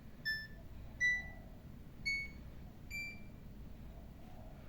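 Front-loading washing machine's control panel beeping four times, about a second apart, each short beep a little higher in pitch than the one before, as the spin-speed setting is stepped through.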